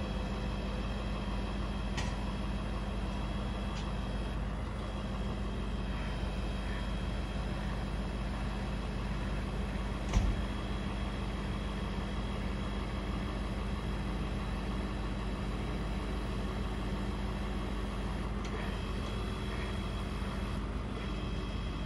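The Ford F550 bucket truck is running steadily with a constant low hum, working the Altec aerial device's hydraulics as the boom moves. A sharp clunk about ten seconds in is the loudest sound, and a lighter click comes about two seconds in.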